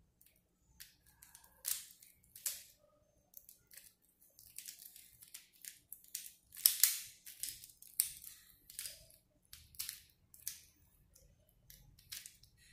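Mirror cube, a 3x3 twisty puzzle, being scrambled by hand: a quick, irregular run of plastic clicks and clacks as its layers are turned, loudest a little past the middle.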